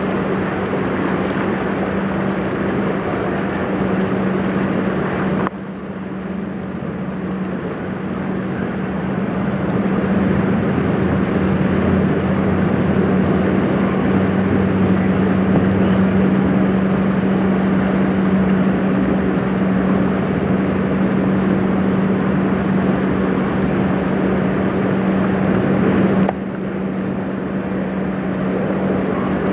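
Great Lakes self-unloading bulk freighter Algoma Conveyor passing close by: a steady low engine hum under an even rushing noise. The level drops sharply about five seconds in, builds back up, and drops again near the end.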